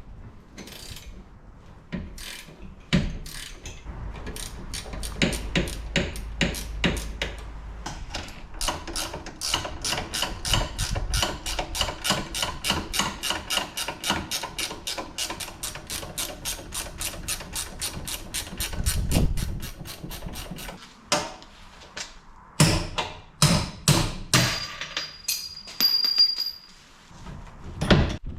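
Hammer blows on steel: scattered strikes at first, then a fast, even run of about four ringing strikes a second, then a few separate heavier blows near the end. The hammering is work on the car's bent rear camber arm to bend it back into shape.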